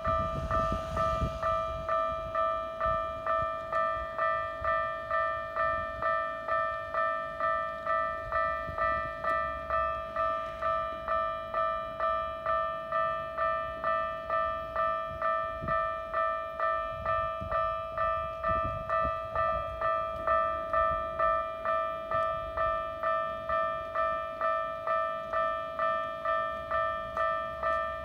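Japanese level-crossing warning bell ringing: an electronic two-tone clang repeating steadily at a little under two strikes a second while the barrier is down.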